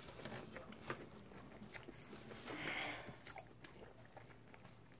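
Close-up chewing and biting of a mouthful of crisp lettuce salad, with small crunches and mouth clicks. About two and a half seconds in there is a louder, noisier crunch.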